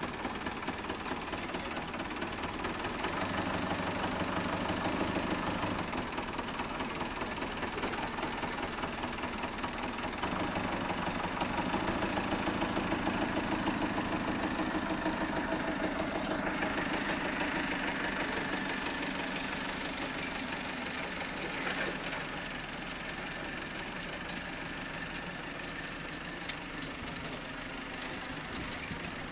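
Forklift engine running with a steady rhythmic beat, growing louder for a few seconds at a time, then quieter over the last several seconds as the forklift drives away.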